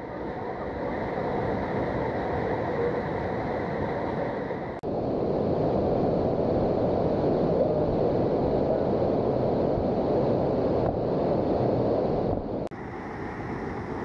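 Waterfall roar: a steady rush of water pouring over rock in a mountain stream. It changes abruptly twice, louder about five seconds in and softer again near the end.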